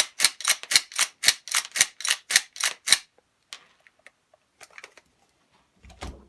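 Hi-capa gas blowback airsoft pistol running on high-pressure air through a magazine adapter, firing about a dozen fast semi-automatic shots at roughly four a second, which stop about three seconds in. A few faint clicks and a brief low thump follow near the end.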